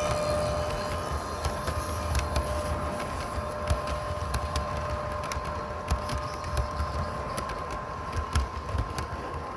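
0 gauge model train running on garden track, its wheels clicking over rail joints under a steady whine and a low rumble. The sound fades slowly as the train moves away.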